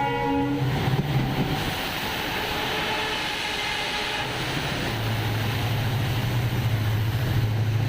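A train passing on the track. Its horn sounds and stops less than a second in, followed by the noise of the train running, with a low steady engine drone setting in about halfway.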